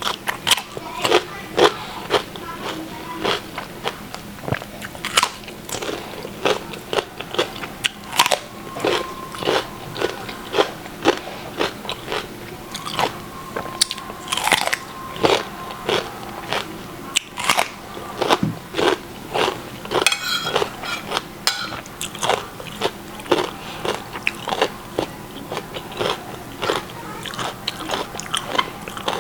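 Close-miked mukbang eating: chewing a mouthful of basil-fried mushrooms and fried egg with rice, a steady string of sharp, crackly crunches about one or two a second.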